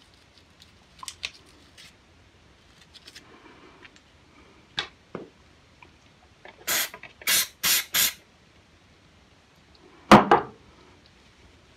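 Gun-cleaning sounds: small clicks and scrapes from toothbrush work on the derringer's frame, then four short sprays in quick succession from an aerosol cleaner about seven seconds in. A single hard knock follows about ten seconds in.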